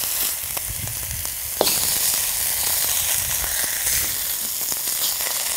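Lamb shank pieces sizzling in a hot cast-iron pan as their fat renders out, the sizzle getting louder about one and a half seconds in when another piece goes into the pan.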